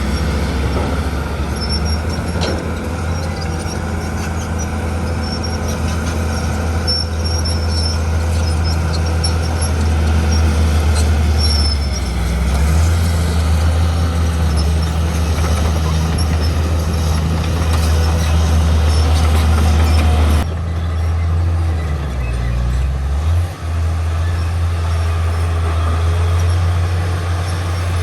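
Heavy diesel earthmoving machinery running under work, a strong low engine drone, with a few brief high metallic squeaks in the first half. About two-thirds of the way through the higher-pitched noise drops away abruptly and the low engine hum carries on.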